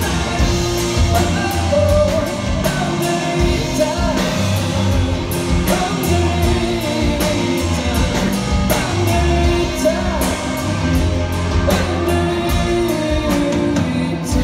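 Live rock band playing: two electric guitars, electric bass and a drum kit, with a man singing lead over a steady drum beat.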